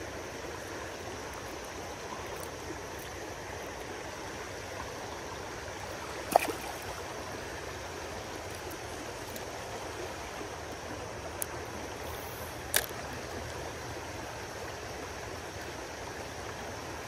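Shallow creek water running steadily over riffles, with two sharp clicks about six seconds apart, the first about a third of the way in and the second about three-quarters of the way in.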